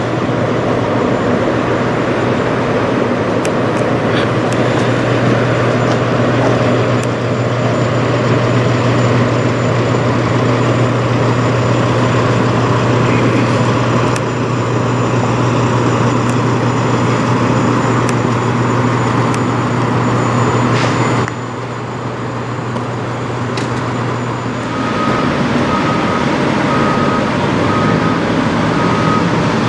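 Semi-truck diesel engines idling steadily with a strong low hum, which stops abruptly about two-thirds of the way in. In the last few seconds a backup alarm beeps about once a second.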